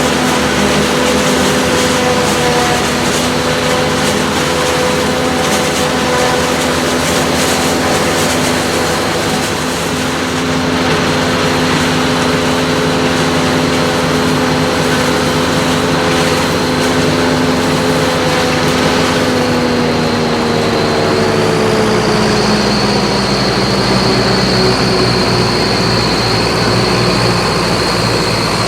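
Tractor engine running steadily under load during maize harvesting. About 20 seconds in, its note drops and a high steady whine comes in.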